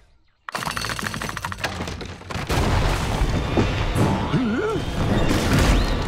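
Cartoon sound effects: after a brief silence, a fast rattle, then a loud rumbling din of booms and crashes with a wobbling sliding tone and a falling glide near the end.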